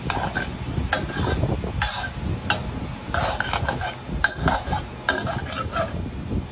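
Metal wok spatula scraping and clinking against an aluminium wok while stir-frying pieces of textured soy protein, in a dozen or so irregular strokes.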